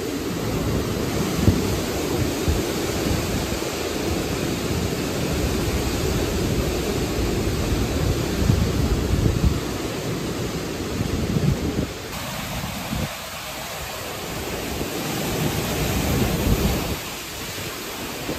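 Hurricane-force eyewall wind gusting and buffeting the microphone with a fluttering low rumble, over a steady hiss of torrential rain and wind through trees. The rumble eases about two-thirds of the way through, leaving mostly the hiss, then the gusts pick up again near the end.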